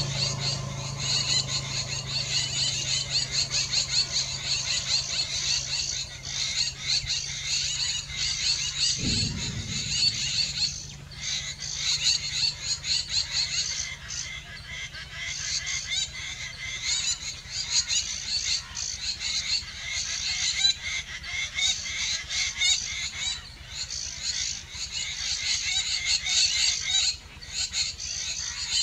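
A dense, steady, high-pitched chorus of calling animals, pulsing rapidly throughout. A low hum underneath stops with a short thump about nine seconds in.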